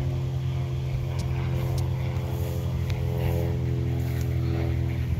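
Steady engine drone with an even pitch, holding at constant speed.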